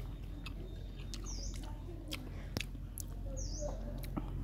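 Sharp crunching clicks of someone chewing and biting crisp fruit, about half a dozen in a few seconds. A small bird chirps twice in the background, short high calls about two seconds apart, over a low steady hum.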